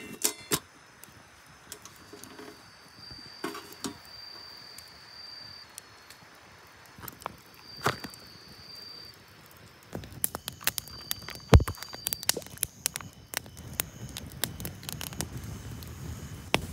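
Scattered light clicks and knocks of small objects being handled, with one louder thump about two-thirds of the way through. A thin high trill sounds three times in the background, about a second each.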